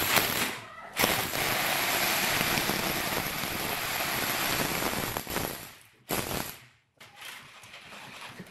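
Rotary hammer drill boring into a concrete column, running steadily for about five seconds from a second in, then stopping, with a short burst of drilling just after.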